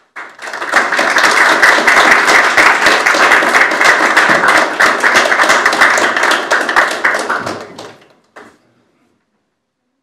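Audience applauding for about eight seconds, the clapping thinning out and stopping near the end.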